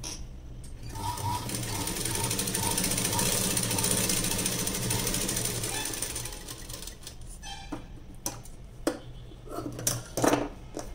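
Sewing machine stitching a narrow fabric strip with a fast, even chatter of stitches for about six seconds, speeding up and then slowing to a stop. A few sharp clicks and knocks follow near the end as the fabric is handled.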